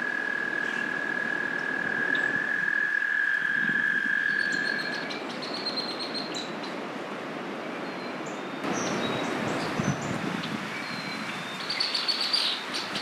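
American toad giving its long, steady, high trill, which stops about five seconds in. Small birds chirp briefly afterwards, most of all near the end.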